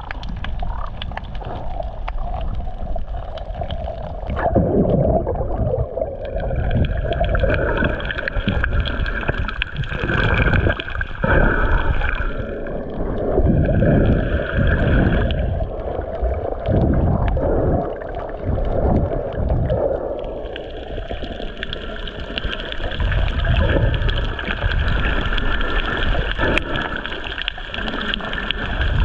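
Water gurgling and sloshing around a camera held underwater while snorkeling, with uneven surges every second or so and a higher hiss that comes and goes.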